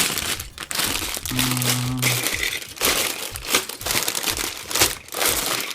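Plastic bags of LEGO pieces crinkling and rustling as they are picked up and handled, with a brief low hum about a second and a half in.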